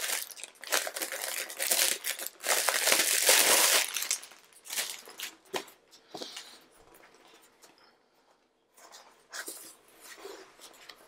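Plastic shrink-wrap being torn and pulled off a journal, crinkling loudly for about the first four seconds. After that come softer rustles and light taps as the book is handled, with a short quiet spell.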